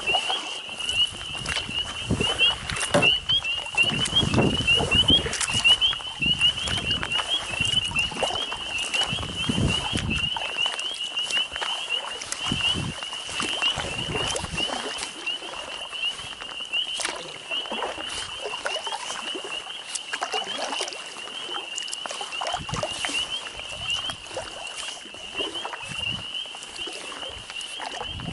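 A dense chorus of small frogs calling in a high, continuous mass of short peeps. Through the first ten seconds or so, low knocks and water noise from the canoe paddling mix in.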